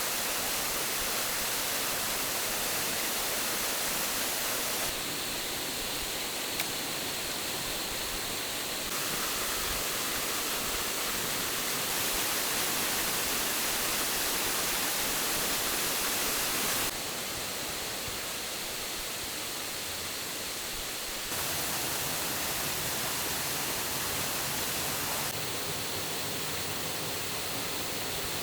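Waterfall rushing: a steady, loud hiss of falling water whose level and tone jump abruptly every few seconds.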